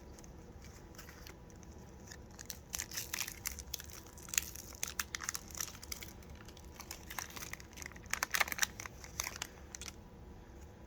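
Foil wrapper of a Pokémon card booster pack crinkling and tearing as it is opened, in a run of sharp crackles that starts about two seconds in and is busiest near the end.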